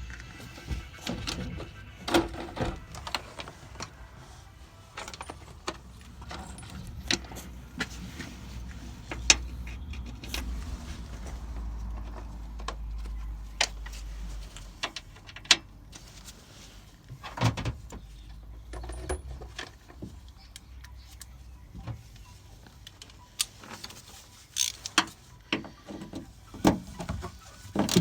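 Hand tools working on a car door's lock mechanism: scattered metallic clicks, taps and knocks at irregular intervals, with a low rumble for several seconds around the middle.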